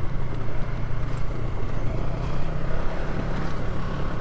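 Polaris ATV engine running at a steady low pitch while the quad rides a desert dirt trail, with a rough rumble and a few faint clicks over it.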